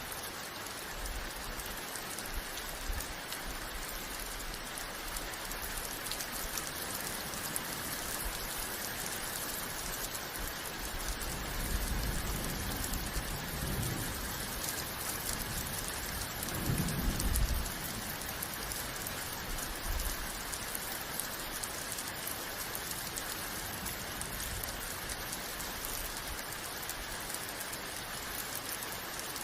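Steady, heavy rain hissing on a surface, with low rumbles of thunder building through the middle and peaking a little past halfway.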